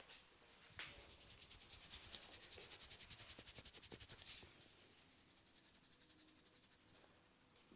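A barber's hands rubbing fast and rhythmically over hair and scalp during a head massage, about nine strokes a second. It starts sharply about a second in, is strongest for some three seconds, then continues as a softer rub.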